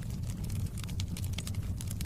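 Wood fire in a fireplace crackling: a dense, irregular run of small sharp pops over a steady low rumble.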